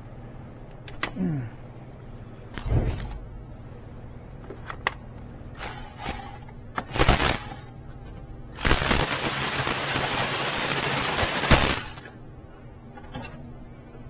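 Ratchet and socket wrench working loose a starter motor mounting bolt: several short metallic clanks and clatters, then a harsh rattling run lasting about three and a half seconds.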